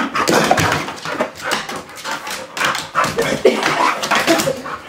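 Pit bull playing excitedly, making a rapid string of short, noisy breathy sounds with brief whine-like notes mixed in.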